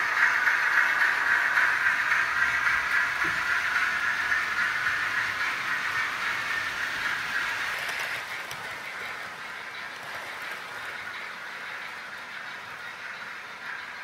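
OO gauge model trains running on the layout's track: a steady rolling rattle of wheels over the rails that slowly fades, dropping quieter about eight seconds in.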